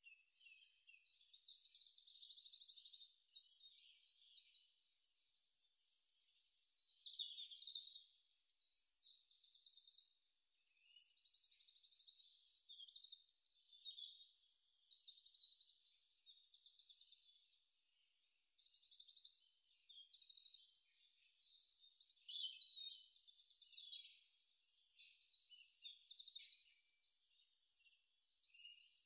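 Birds chirping: a continuous chorus of high, rapid trills that swells and dips in phrases with short lulls. There is nothing low-pitched beneath it.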